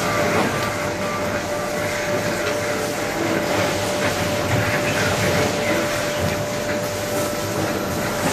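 Steady workshop machinery noise: a continuous rushing hum with a constant mid-pitched whine.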